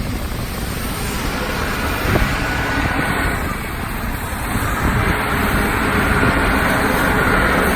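Self-loading concrete mixer running: steady engine and machinery noise with a faint whine, growing somewhat louder in the second half.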